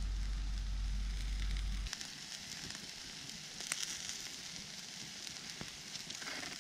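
Campfire crackling and hissing, with scattered sharp pops over a steady hiss. A heavy low rumble underneath cuts off abruptly about two seconds in.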